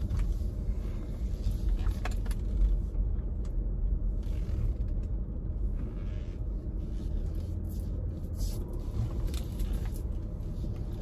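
Steady low rumble of a car's road and engine noise, heard from inside the cabin while driving, with a few faint ticks.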